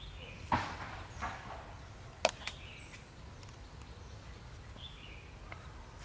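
Stones being handled: a rough scrape about half a second in, then a sharp clack of stone on stone a little over two seconds in, with a smaller knock just after. Birds chirp briefly against the outdoor background.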